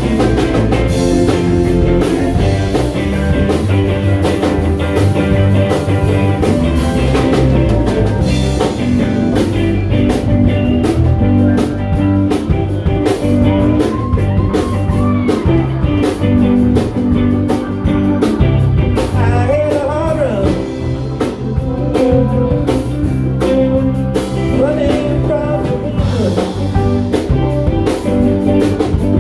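A live band playing blues-style rock and roll with electric guitar, bass and a drum kit, at a steady loud level.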